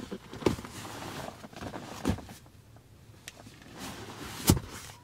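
Rear centre armrest of a Chevrolet Silverado's back bench being pulled down by its strap and handled, with rustling. There are three dull clunks: about half a second in, around two seconds, and the loudest near the end.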